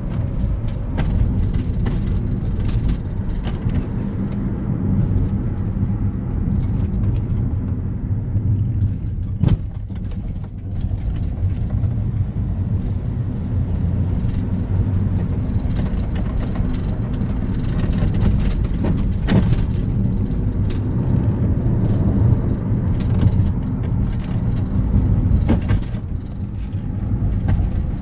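Car interior noise while driving: a steady low rumble of engine and tyres heard from inside the cabin, with a couple of sharp knocks, one about a third of the way in and one about two-thirds in.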